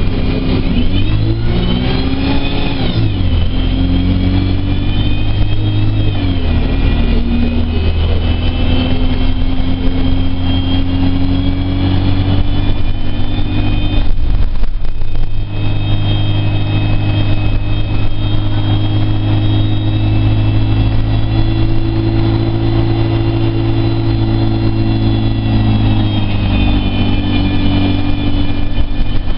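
Interior of an Alexander Dennis Enviro 200 Dart single-deck bus under way: the diesel engine running loud and steady, its pitch climbing and dropping as the bus accelerates through its gears near the start and again near the end. About halfway there is a brief lull in the engine note.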